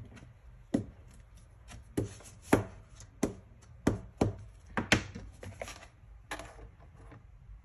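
About ten sharp taps and short scrapes, irregularly spaced: a plastic applicator block being pressed and rubbed over a screen-protector film sheet laid on a cutting plotter's mat on a hard counter.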